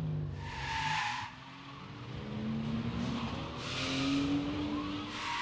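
Cars braking hard, with tyres skidding and squealing in two bursts, about half a second in and again from three and a half seconds, over engine noise that rises in pitch.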